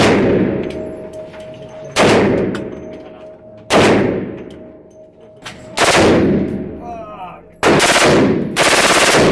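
Four single Desert Eagle pistol shots, about two seconds apart, each with a long echo off the walls of an indoor range. Near the end come two rapid bursts of fully automatic AR-15 fire, each just under a second long.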